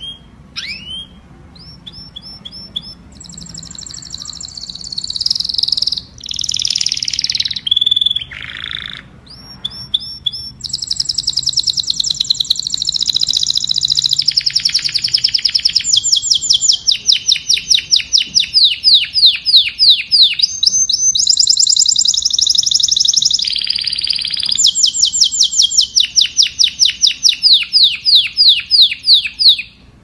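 Domestic canary singing: a few short chirps, then a long song of high, rapid trills and fast runs of repeated notes. Each run holds one pitch before switching to the next, with a couple of short pauses.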